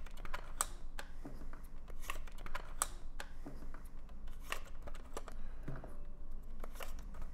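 Light plastic clicks and rattles from a Buzzbee Thundershot toy revolver blaster's drum as foam darts are pushed into it one by one and the drum is turned between them. The clicks come irregularly, about one every half second to a second.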